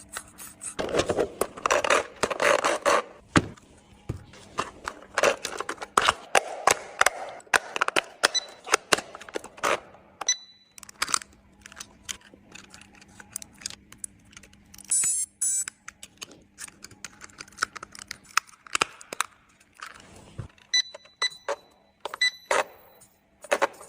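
Irregular clicking, rattling and scraping, like hard objects being handled, with a few short high electronic beeps about ten seconds in and again near the end.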